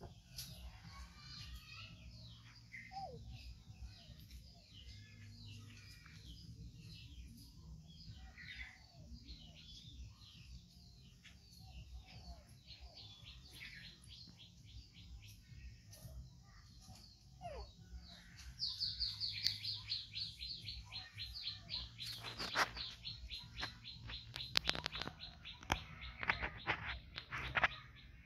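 Birds chirping and calling in the background. About two-thirds of the way in, a louder, fast run of repeated chirps starts and carries on to the end.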